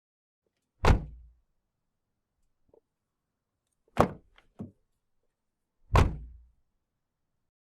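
Car doors slamming shut, three heavy thuds about two to three seconds apart; the second is followed by two lighter knocks.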